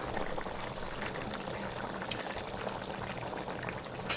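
Steady sizzling and crackling of food cooking on the stove.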